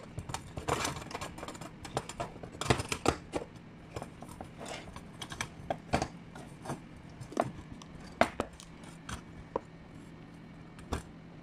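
Scattered small clicks, taps and metallic clinks of hands handling the metal housing, reflector and wiring of an opened stage spotlight, over a faint steady hum.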